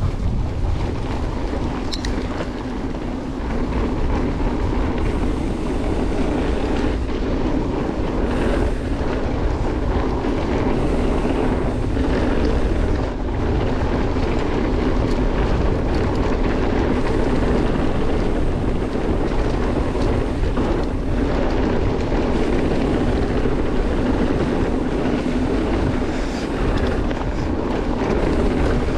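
Mountain bike ridden along a trail, heard from a helmet- or body-mounted action camera: a steady rumble of tyres over the dirt mixed with wind on the microphone, a little louder from about four seconds in.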